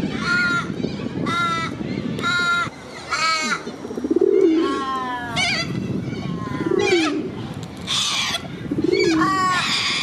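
Corellas calling over and over during a fight, about one loud squawk a second. Lower, shorter calls come in every two seconds or so.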